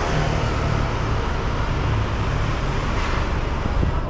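Steady street traffic: vehicle engines humming low over an even wash of road noise.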